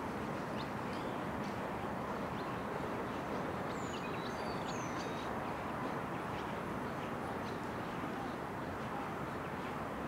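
Lakeside ambience: a steady wash of background noise, with a few short, high bird chirps around the middle.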